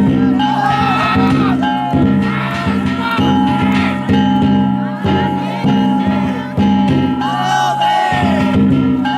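Danjiri festival music: a big drum struck about once a second, each stroke ringing out low, over the steady metallic ringing of hand gongs, with voices calling and chanting over it.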